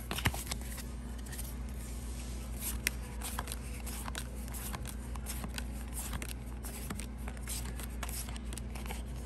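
Pokémon trading cards flipped through by hand, cards slid from the back of the stack to the front: a run of quick, sharp card clicks and slides, over a steady low hum.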